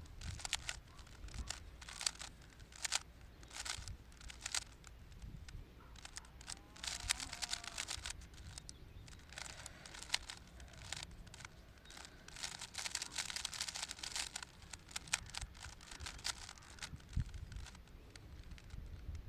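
3x3 Rubik's cube being turned fast in a speed solve: plastic layers clicking and rattling in quick bursts of turns with short pauses between, over a low rumble of wind on the microphone.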